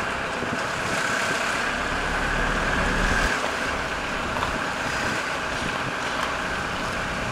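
Steady running noise of a road vehicle driving along: engine and tyre noise with a low rumble that swells and fades.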